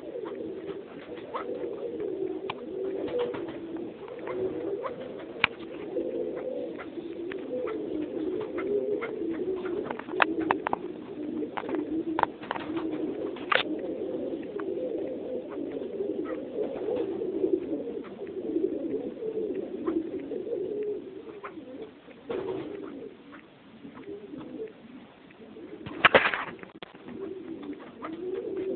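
A flock of captive Alectoris partridges making a continuous low, murmuring run of cooing calls, with scattered sharp clicks and a louder burst of noise near the end.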